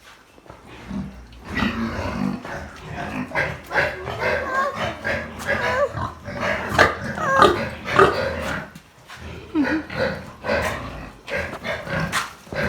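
Farm animals grunting and squealing, with short wavering calls and frequent sharp knocks.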